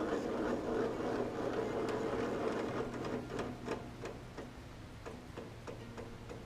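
Mini round baler's mechanism running: a dense rattle that eases off after about three seconds, then regular mechanical ticking about three times a second over a low hum.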